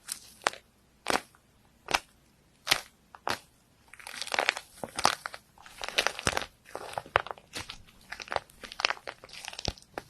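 Crisp material being crushed in repeated sharp crunches. The crunches are spaced about once every second or less at first, then come in a denser crackling run from about four seconds in.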